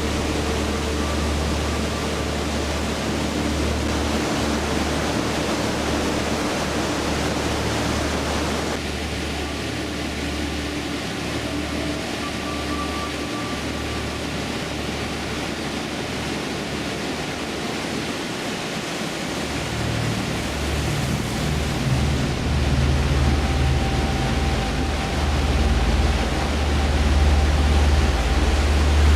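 Waterfall's rushing water: a steady, dense noise with a deep rumble underneath. Its character changes abruptly about nine seconds in and again around twenty seconds, and it grows louder towards the end.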